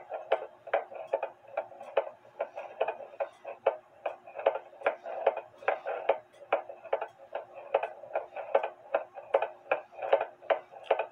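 Escapement of a 30-hour cuckoo-style clock movement ticking steadily, about two and a half ticks a second, picked up through a beat amplifier's microphone. The clock is not quite in beat.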